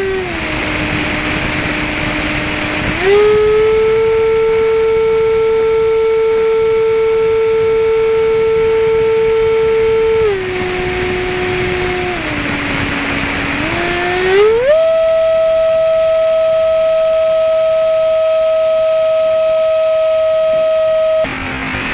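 Electric ducted-fan motor of a Banana Hobby F-22 RC model jet whining steadily in flight, its pitch dropping and rising with the throttle. It eases down at the start, rises again about three seconds in, drops around ten seconds, then climbs near fourteen seconds to its highest and holds there, before switching abruptly to a lower tone near the end.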